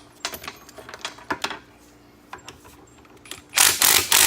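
Metal tools clinking and clicking as they are handled. Near the end a loud tool starts up in short bursts with brief gaps between them.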